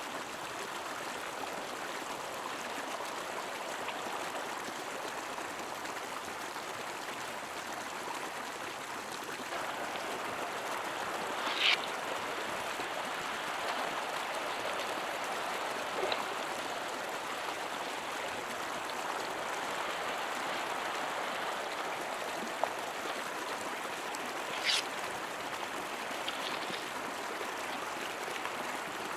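Steady rushing of flowing river water, with a few brief sharp ticks or splashes, the clearest a little before the middle and near the end.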